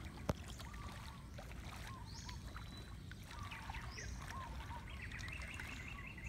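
Legs wading step by step through shallow floodwater, the water swishing and splashing. A sharp click comes about a third of a second in, and birds chirp in the background, more toward the end.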